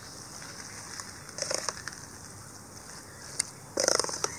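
Steel spoon scraping and clinking against steel cookware in two short bursts, about a second and a half in and again near the end, with a single click between them.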